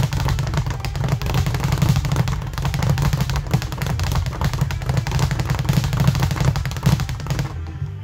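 Speed bag struck in a fast, unbroken rapid-fire rhythm, the bag rattling off the rebound board as it swings on an Arc Pro swivel.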